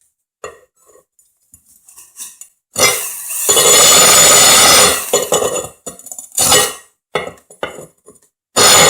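Power drill spinning a diamond hole saw into porcelain tile: a loud steady run of about two seconds, a short burst, and another run starting near the end. Light clinks and taps of hard tile and tool come in the pauses.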